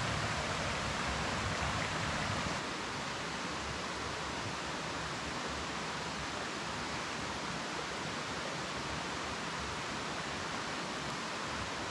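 Steady rush of a small rocky mountain stream, a little quieter after about two and a half seconds.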